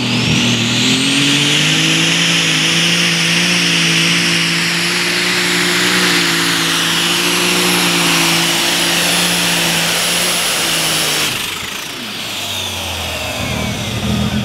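New Holland 8260 Light Super Stock pulling tractor's turbocharged engine at full pull. The revs climb and then hold high under load, with a high turbo whistle above them. About eleven seconds in, the throttle shuts off abruptly, the turbo whine winds down, and the engine drops to a low idle.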